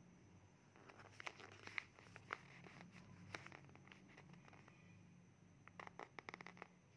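Faint rustling and soft clicks of a fingertip sliding over a paper workbook page. They come in two clusters, one starting about a second in and another near the end, over a low steady hum.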